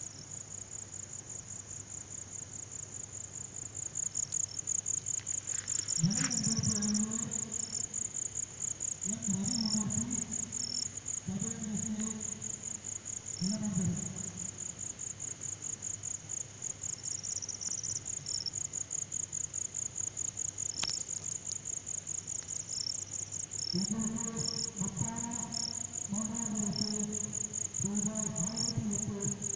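Crickets chirring in a steady, rapidly pulsing high trill. A few short low calls sound at intervals, then come in a quicker run near the end.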